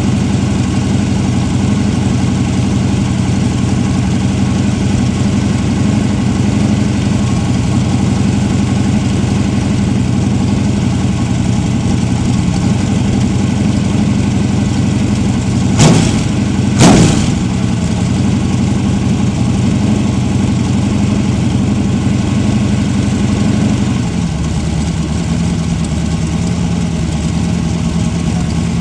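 1970 Chevy LT1 350 small-block V8 running on an engine stand through short open exhaust pipes, holding a steady fast idle. About sixteen seconds in it is blipped twice in quick succession. Later the idle settles lower.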